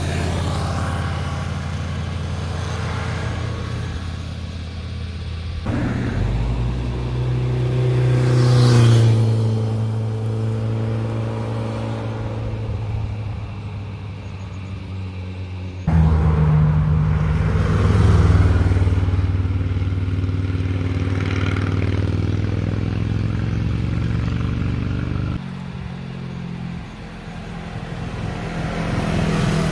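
Motorcycle engines running hard as bikes ride through a bend past the roadside, one pass after another. Each engine is loudest as the bike comes close, and its note drops as it goes by. The sound changes abruptly about 6, 16 and 25 seconds in, where one pass cuts to the next.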